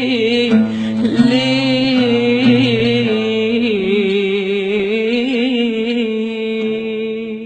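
Closing phrase of an Arabic tarab song: a woman's voice holds a long, ornamented note with wavering vibrato over sustained accompaniment, trailing off as the song ends.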